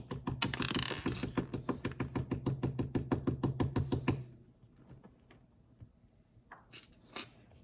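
Rapid, even clicking, about eight clicks a second, lasting about four seconds, then a few faint ticks near the end.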